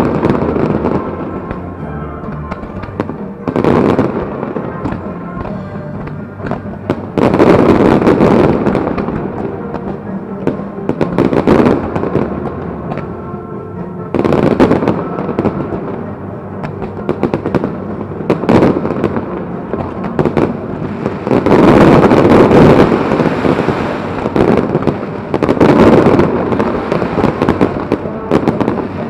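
Fireworks going off in waves of loud bangs and crackling every few seconds, with music playing underneath.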